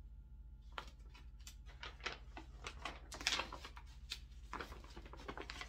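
A folded paper pamphlet being handled and opened out: irregular rustling and crinkling that starts about a second in, with the loudest crackle a little past the middle.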